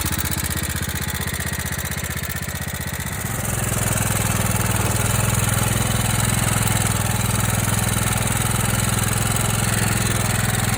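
Riding lawn mower's engine running steadily while it is driven; about three seconds in it picks up and runs louder.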